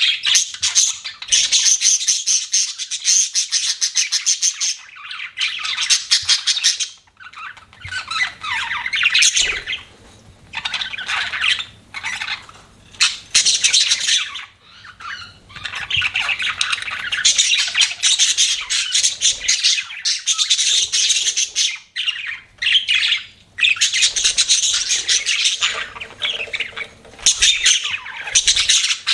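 Budgerigars chirping and chattering: rapid high-pitched notes in bouts of a few seconds, with short pauses between.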